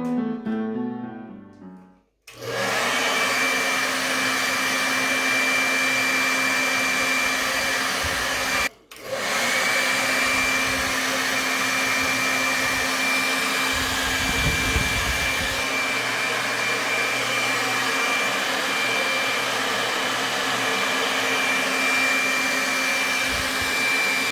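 Handheld hair dryer blowing steadily on hair held over a round brush: a loud rushing of air with a thin, steady high whine. It cuts out suddenly for a moment about nine seconds in, then runs on, with a brief low rumble a little past the middle.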